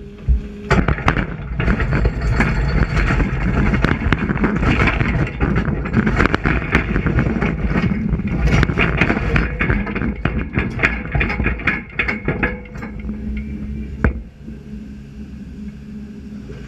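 Hyundai 380 long-reach excavator working rock: dense clattering and knocking of rock and metal over the machine's steady engine hum. The clatter stops about 13 seconds in, leaving the hum.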